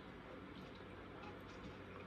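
Near silence: steady low room tone with a faint hum.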